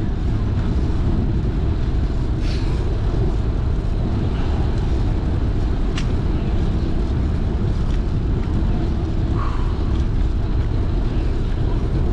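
Steady low rumble of wind buffeting the microphone and tyre noise from a fixed-gear bicycle rolling on asphalt, with a single sharp click about six seconds in.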